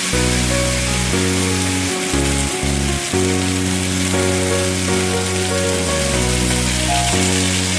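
Beef and mushrooms sizzling as they stir-fry in a hot wok, a steady hiss. Background music with held notes and a bass line that changes about once a second plays over it.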